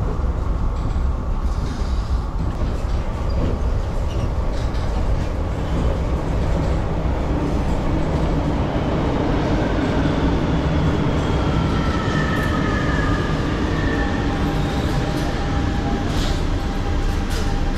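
Subway train running through an underground station: a steady loud rumble, with an electric whine that glides in pitch in the second half.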